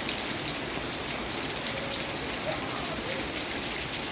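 Steady rain falling, with a continuous hiss of drops landing on surfaces.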